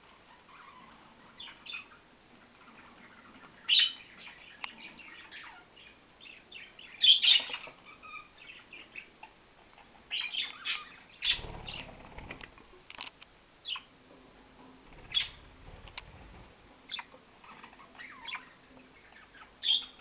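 Pet budgerigars chirping and chattering in short, sharp calls at irregular intervals, a few of them louder. Twice in the middle comes a low rumble lasting about a second.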